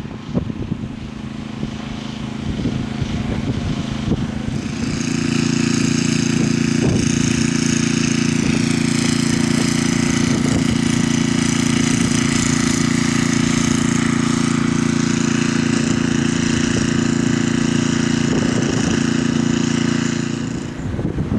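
An engine or motor running at a steady, unchanging speed. It starts sharply about four seconds in and stops shortly before the end, with rougher wind-like noise on either side.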